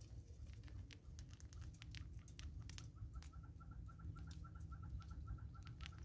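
Faint irregular clicks and crackles of seed being worked as a Smith's bush squirrel feeds with its head in a plastic bottle feeder. From about halfway, a bird calls in a fast, even run of short notes, about five a second.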